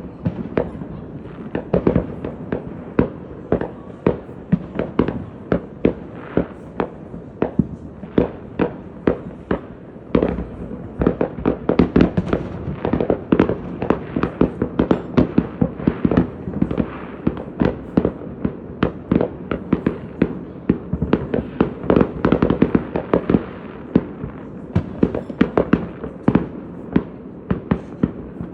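Fireworks going off in rapid, continuous succession: many sharp bangs and pops, several a second, overlapping over a steady rumble.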